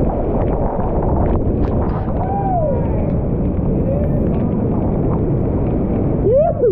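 Loud, steady rush of a high-water creek rapid churning around a whitewater kayak. A few short voice hoots rise and fall over it, the loudest near the end.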